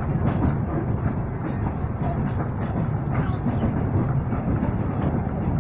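Passenger train running, heard from inside the carriage: a steady rumble and rattle of the wagon on the rails. A brief high squeak comes near the end.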